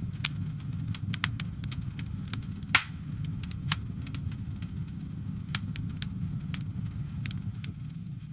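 Campfire crackling: scattered sharp pops and snaps of burning wood, the loudest about three seconds in, over a steady low rumble of the flames.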